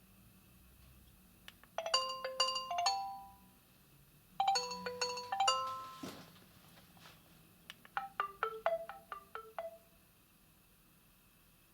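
Nokia 6300 4G phone speaker playing short marimba-like ringtone melodies, one after another with pauses between. A phrase of a few notes comes about two seconds in, another at about four and a half seconds, and a quick run of about ten notes near eight seconds.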